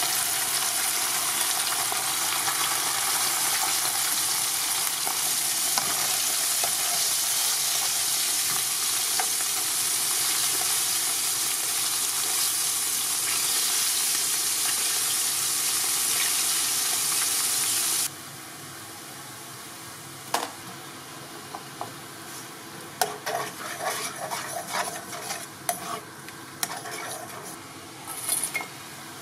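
Cornstarch-coated small gobies deep-frying in hot oil in a wok: a loud, steady sizzle. About two thirds of the way through it drops suddenly to a quieter sizzle with scattered metal clinks and scrapes of a skimmer and steel bowl against the wok, busiest near the end.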